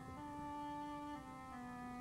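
Instrumental background music: a slow melody of long held notes, each changing to the next about once a second.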